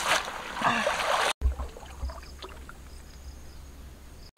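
Water splashing as a bunch of leafy greens is swished and rinsed in shallow stream water, for about the first second and a half. Then, after a sudden cut, a much quieter low rumble with faint high chirps.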